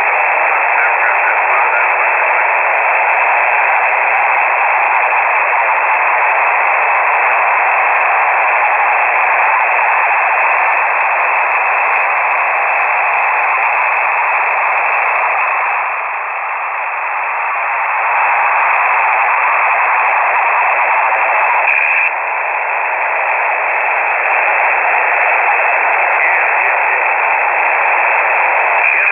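Shortwave receiver static from a KiwiSDR: a steady hiss held within the narrow voice passband of the radio, with no station audible. It dips briefly about two-thirds of the way in, and a small click near the end leaves the hiss slightly quieter.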